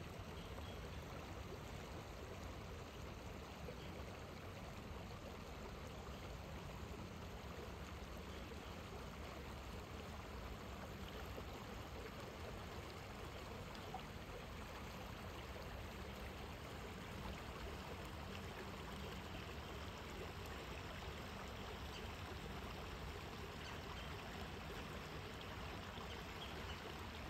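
Small woodland river flowing gently: a soft, steady rush of water with no other distinct sounds.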